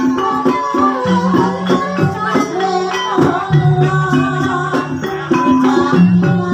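Live Javanese gamelan music accompanying an ebeg (kuda lumping) dance. Held low notes change pitch every second or two under a wavering higher melody, with shaken percussion on top.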